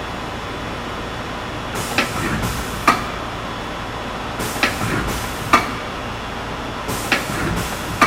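Large Poreba PNA-80 CNC lathe running under power, with a steady mechanical noise and repeated sharp metallic knocks, mostly in pairs about a second apart.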